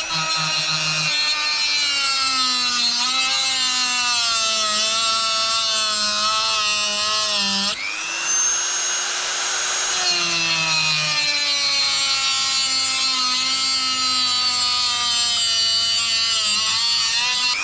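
Power drill running in two long runs with a short stop about eight seconds in. Each run starts at a high pitch that sags and wavers as the bit loads up.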